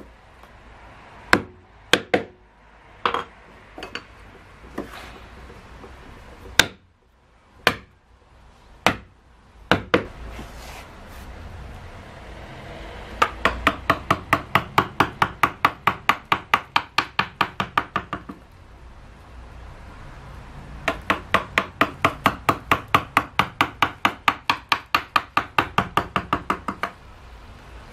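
A round wooden carver's mallet striking a chisel that cuts into cedar wood. First come single blows spaced about a second apart, then two long runs of quick, light taps, about seven a second, in the middle and again near the end.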